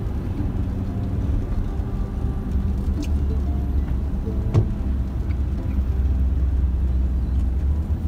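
Steady low rumble of a car's engine and road noise heard from inside the cabin while driving, with one sharp knock about halfway through.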